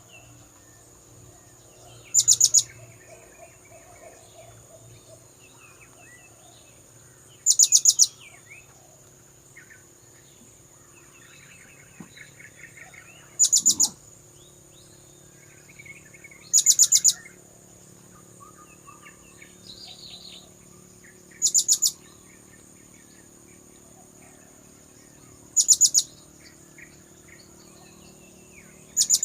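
Blue-crowned hanging parrot (serindit) lure call: a short burst of rapid, shrill high notes, repeated every three to five seconds, with fainter chirps of other birds in between.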